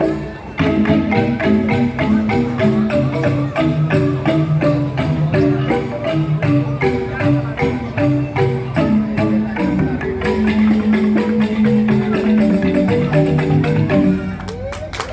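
Joged bumbung gamelan music: bamboo xylophones (grantang) playing fast, dense runs of struck notes, with other percussion. There is a brief break about half a second in.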